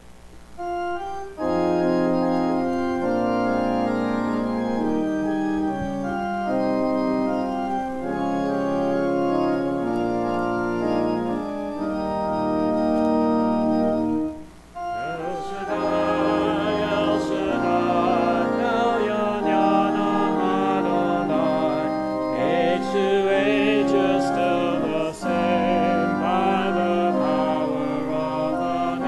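Organ playing held hymn chords, then about fifteen seconds in a congregation starts singing the hymn with the organ.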